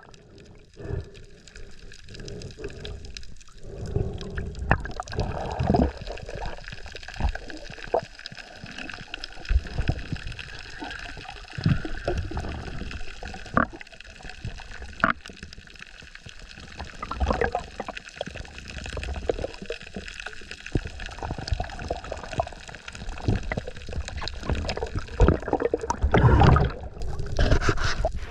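Water sloshing and gurgling as heard by a camera under water, with a few sharp clicks scattered through it and a louder surge of water noise near the end.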